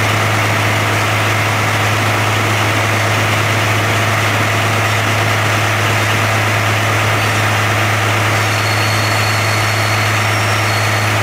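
Diesel railcar running along the track, heard from the cab: a steady low engine drone under constant running noise.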